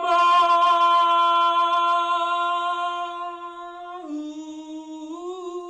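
A single voice singing one long held note on 'Mama'. It is loud for the first few seconds, then softer. The pitch drops a step about four seconds in and rises back about a second later.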